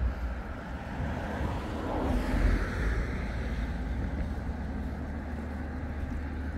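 Wind rumbling on the microphone over the steady rush of the river, with a swell of noise about two seconds in that fades back.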